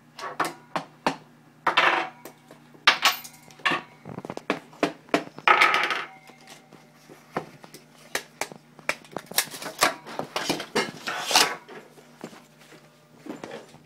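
Small objects clattering and knocking on a wooden desk as hands rummage through a zipped fabric case and pick up small tools, in a string of irregular clicks and taps, with a longer rustle a little before halfway.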